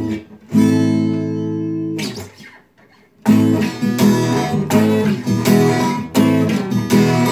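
Acoustic guitar: a chord is strummed and left ringing, then fades to a short pause. After that comes steady rhythmic strumming at about three strokes a second.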